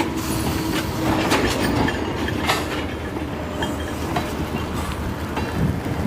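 Propane tank cars rolling slowly along the track, their steel wheels clicking and knocking over the rail joints several times over a steady rumble.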